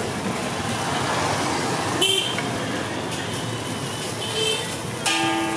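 Steady street traffic noise with a sharp ringing clink about two seconds in, and a vehicle horn that starts suddenly near the end and holds.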